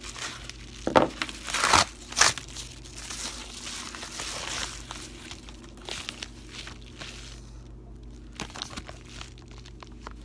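Packaging being torn open and crinkled by hand: three loud tears in the first couple of seconds, then steady crinkling that fades to scattered small clicks and rustles over the last few seconds.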